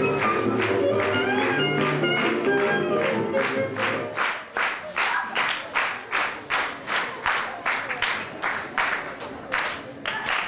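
Music playing while an audience claps in unison to the beat. About four seconds in the music stops and the rhythmic clapping carries on alone, about two and a half claps a second.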